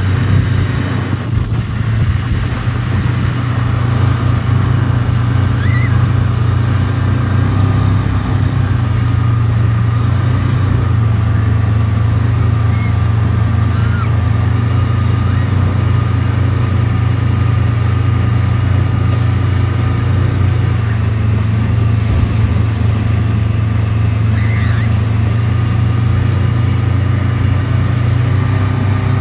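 Speedboat engine running steadily at speed while towing an inflatable ride, with the rush of its wake.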